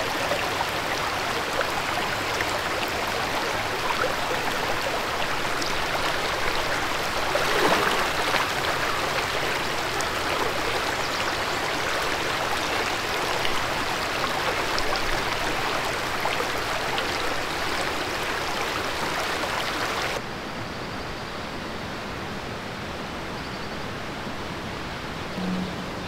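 Shallow mountain creek running over rocks, a steady rushing of water. About twenty seconds in it cuts off abruptly to a quieter, softer outdoor ambience.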